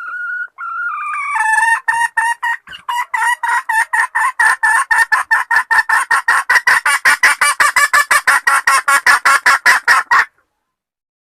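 Junglefowl hen calling: two or three drawn-out notes, then a fast run of clucks, about five a second, that cuts off suddenly about a second before the end. It is the hen's call to a cock, given as her mating call.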